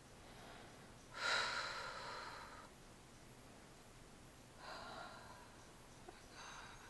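A person breathing heavily through the nose and mouth: one long, louder breath about a second in, then two quieter breaths later on.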